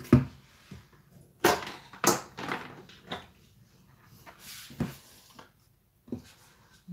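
Several sharp knocks and clatters as a stand mixer's dough hook and clear plastic mixing bowl are handled and set down on a countertop, the first knock the loudest, two more about a second and a half and two seconds in, then lighter taps.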